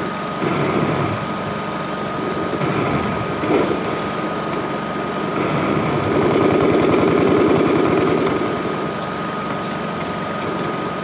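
Rapid rattling battle noise on an old, worn film soundtrack, over a steady high whine. It swells louder about six seconds in for two seconds or so.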